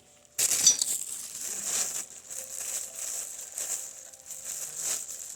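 Rustling, crinkling handling noise with small clicks and clatters as parts are moved about. It starts suddenly about half a second in and goes on unevenly.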